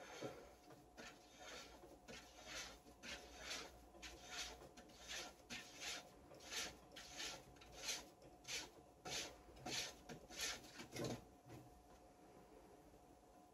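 Faint rubbing strokes of a hand pushing round the rim of a wooden wheel on its axle, about two a second, as the wheel is spun up by hand. The strokes stop about two seconds before the end.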